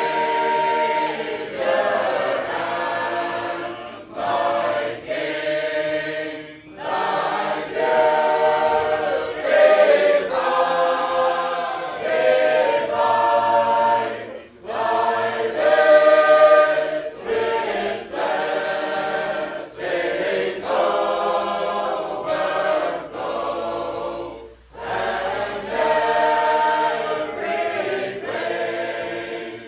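Sacred Harp shape-note singing: a room full of voices singing unaccompanied in four-part harmony, loud and full, with a few short breaks between phrases.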